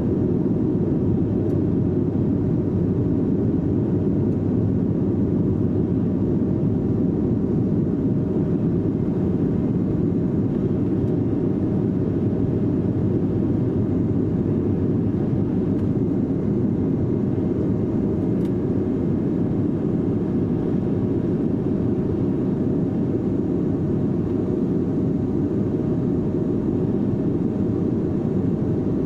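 Cabin noise inside a Sukhoi Superjet 100 climbing after takeoff: its SaM146 turbofan engines and the airflow make a constant low rumble, with a faint steady tone running through it.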